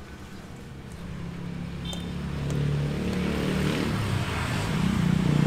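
A motor vehicle engine running, growing steadily louder as it approaches. There are a couple of light clicks about two seconds in.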